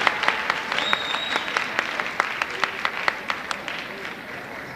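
Assembly audience applauding, the clapping thinning out and dying away to scattered claps, with a brief whistle about a second in.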